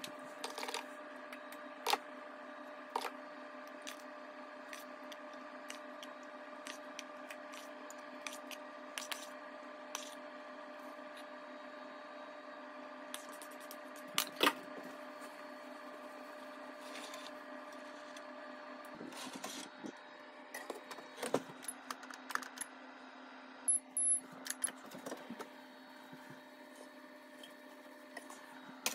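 A steady hum of several level tones, over which a metal muffin tin and a plastic mixing bowl give scattered light clicks and knocks as they are handled. The loudest knock falls about halfway through, and a cluster of clicks comes in the last third, as the hum weakens.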